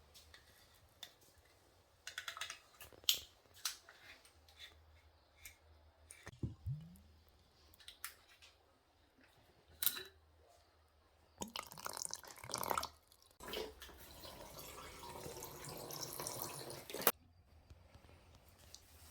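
Kitchen work sounds: scattered light clicks and knocks of things being handled, then water running from a tap for about four seconds in the second half, stopping suddenly.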